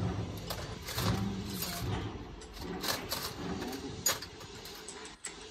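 Workshop tool work: irregular sharp clicks and knocks, over a low, uneven background.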